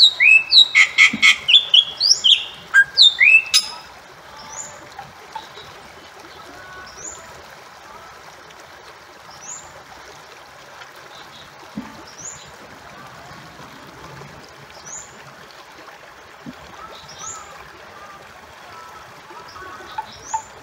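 Bali myna calling: a loud burst of rapid harsh notes and rising whistles that stops about three and a half seconds in. After that only a quieter background remains, with faint high rising chirps about every two and a half seconds.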